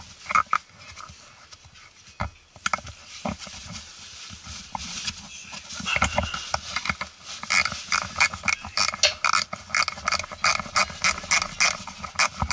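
Ratchet spanner clicking in quick strokes under the truck's front axle: a few scattered clicks at first, then a fast, steady run of clicks from about halfway.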